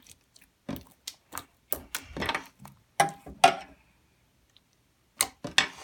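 A spoon clicking and scraping against a bowl while stirring slime that has just had borax added. The taps come irregularly, with a pause of about a second near the end.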